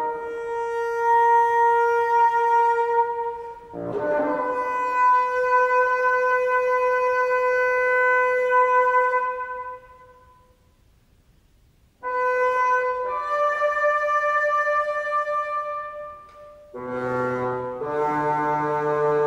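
Unaccompanied bassoon playing long held notes in its upper register, one fading away to near silence about ten seconds in. After a pause of about two seconds it resumes with further held notes, then drops to low notes near the end.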